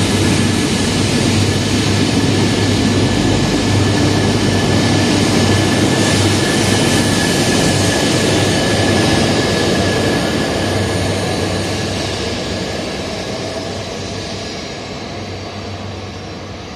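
Genbi Shinkansen, an E3-series bullet train, running past along a station platform and away. A loud, steady rushing noise with a high tone running through it fades away over the last several seconds as the train leaves.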